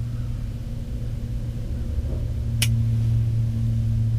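Steady low mechanical hum, with a single sharp click about two and a half seconds in.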